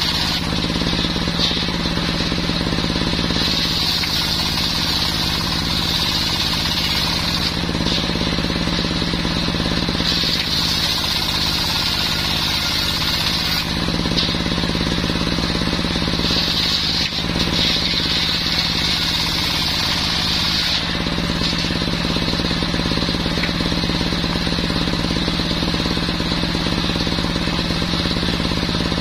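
Small petrol engine of a machine-driven circular wood saw running steadily, with a higher whine that comes and goes in stretches of a few seconds as the steel blade cuts through mahogany.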